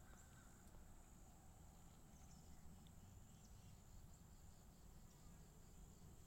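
Near silence with a faint, steady high-pitched insect trill running on without a break.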